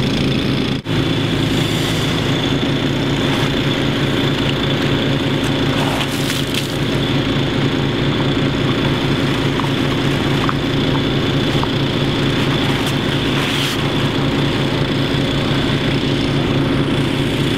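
Engine of a water pump running steadily at constant speed while it fills the dam tube through hoses, with a brief dropout about a second in.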